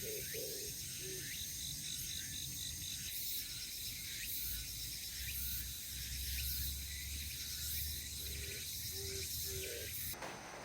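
Crickets and other insects chirping steadily in a pulsing high-pitched chorus. The sound cuts off abruptly near the end.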